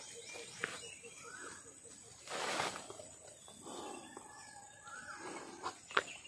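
Faint outdoor ambience with rustling and a few light clicks. A quick run of evenly spaced pulsing notes sounds in the first second, and a louder rustle comes about two and a half seconds in.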